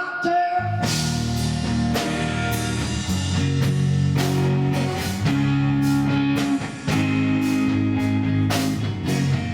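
Instrumental rock music: guitar, held bass notes and a drum kit keeping a steady beat, with no singing.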